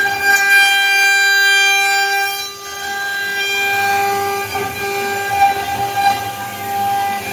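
CNC router spindle and cutter milling aluminium: a steady high-pitched whine made of several held tones, dipping briefly about two and a half seconds in.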